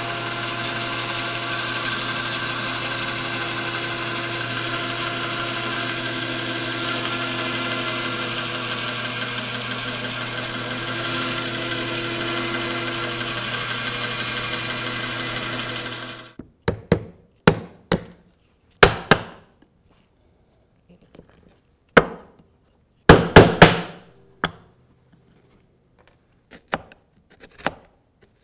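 Rikon bandsaw running steadily and cutting dovetail pins in a hardwood board, a hum with saw hiss that cuts off abruptly about 16 seconds in. Then a scattering of sharp wooden knocks and taps from chisel work on the dovetail joint.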